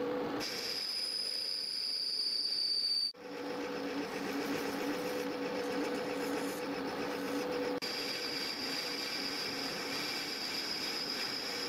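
Metal lathe running steadily with a whine from its drive and gearing as it turns a cast iron bar. The sound breaks off abruptly about three seconds in and again near eight seconds, and its pitch shifts slightly each time.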